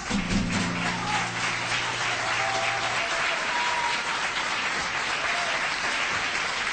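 Audience applauding at the end of a live song. The band's last low chord holds under the clapping for about three seconds, then stops.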